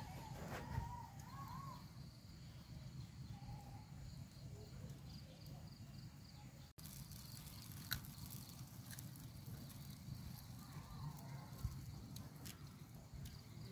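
Quiet outdoor ambience: a low steady rumble, with a few sharp crackles from the open charcoal and wood fire and faint warbling animal calls near the start and again later on.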